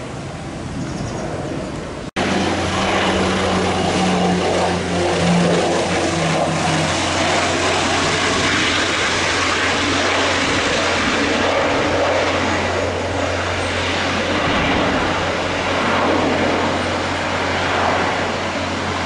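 Aircraft engines at close range: a loud, steady roar that begins suddenly about two seconds in, with a low tone falling in pitch over the first few seconds. Before it there is quieter background noise.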